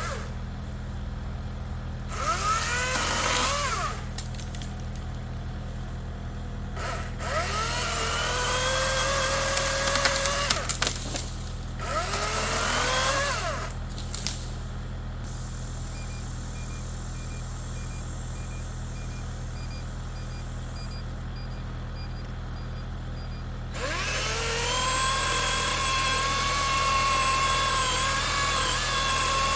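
Chainsaw idling, then revved up four times to cut through tree branches, the engine note rising quickly each time and holding, the last cut the longest.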